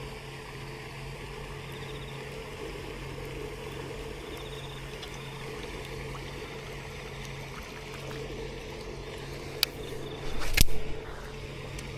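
Steady running water with a low hum; about ten seconds in, a sharp crack and then a loud swishing burst as a cast is made and the fishing line snaps clean, sending the lure off.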